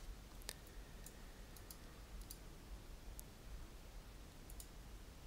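Faint clicks of a computer mouse and keyboard, several coming in quick pairs like double-clicks, over a low steady hum.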